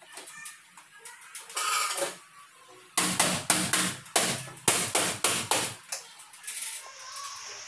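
An aluminium frame section being knocked into place by hand: a run of sharp metallic knocks, about two a second for some three seconds in the middle, after a brief scrape of the aluminium strip along the frame.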